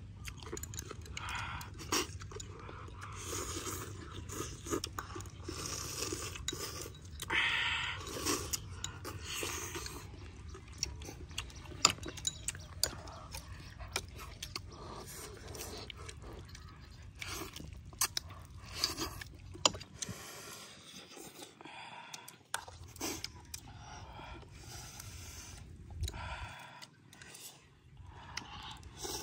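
Two people eating noodle soup close to the microphone: chewing, with sharp clicks and scrapes of chopsticks against the bowls scattered irregularly throughout.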